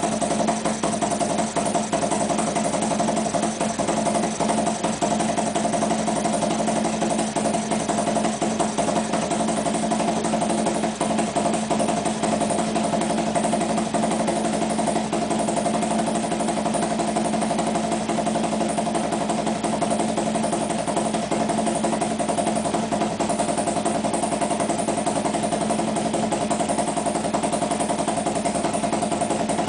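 Harley-Davidson V-twin engine idling steadily while warming up, with no revving.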